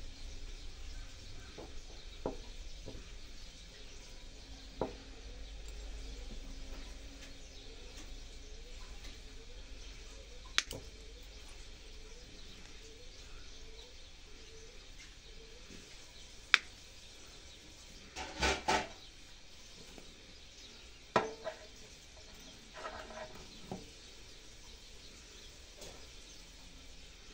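Sharp metal clicks of a small hand tool cutting and pulling training wire off a juniper bonsai, single snips every few seconds and a short rattling cluster about 18 seconds in.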